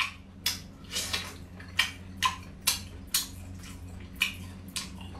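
Close, wet chewing and lip-smacking of spicy ark clam meat, in short strokes about two a second over a faint low hum.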